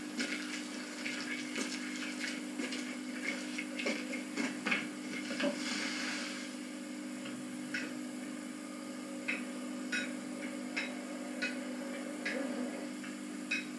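Irregular knocks and clinks of wood and metal as the parts of a wooden basket wine press are handled and fitted, over a steady low hum.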